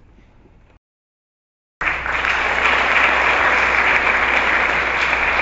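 Audience applauding, steady and loud. It cuts in abruptly about two seconds in, after a second of dead silence.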